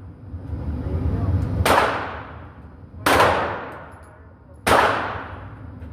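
MP5 submachine gun firing three single shots about a second and a half apart, each shot trailing off in echo.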